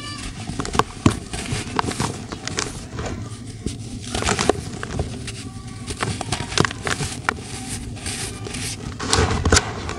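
Hands crushing and crumbling dry, dusty grey lumps: irregular gritty crunches and crackles, with fine powder sifting between the fingers.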